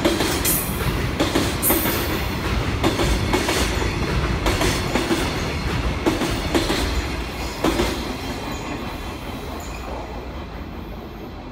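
Freight train passing, its wagons' wheels clacking over rail joints. The sound fades away over the last few seconds as the train moves off.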